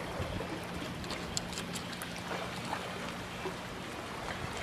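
Lake water lapping gently, with small scattered splashes and drips over a faint steady low hum.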